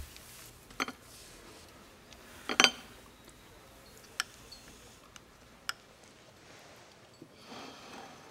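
Scattered clinks and knocks of dishes and cutlery in a quiet room, the loudest a quick double knock about two and a half seconds in, with a soft rustle near the end.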